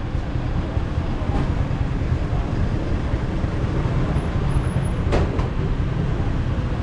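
Steady low rumble of motorcycle engines running at a fuel station, with a sharp click a little after five seconds in.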